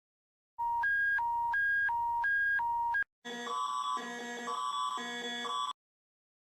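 Electronic emergency alert tones: a hi-lo two-tone signal switching between two pitches about three times a second, cut off after about two and a half seconds, then a different alert in which two clusters of tones alternate about twice a second before it stops abruptly.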